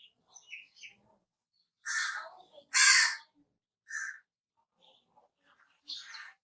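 Crow cawing: four harsh caws spaced about a second apart, the loudest about three seconds in, a short one near four seconds and the last near the end. Faint high chirps come in the first second.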